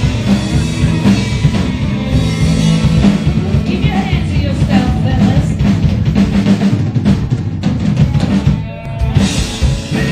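Live rock band playing, with the drum kit prominent and a little singing over guitar and bass. There is a short drop about eight and a half seconds in, then a loud cymbal crash, as the song comes to its end.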